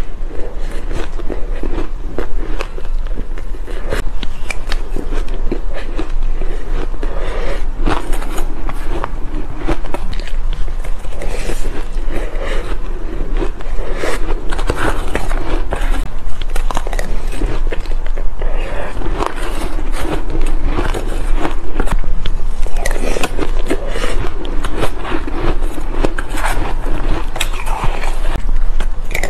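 Close-miked chewing of soft, powdery crushed ice: a dense, continuous run of small crunches and crackles. A metal spoon scrapes through the ice in the bowl now and then.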